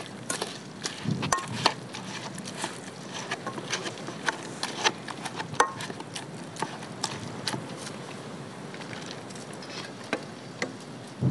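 A metal masher pounding and scraping cooked eggplant in a metal frying pan, giving irregular clicks and taps, with a steady background hiss.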